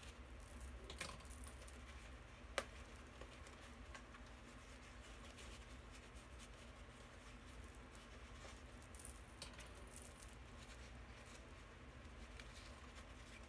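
Faint rustling and small plastic clicks as foam hair rollers are unclipped and unwound from dreadlocks, with one sharp click about two and a half seconds in.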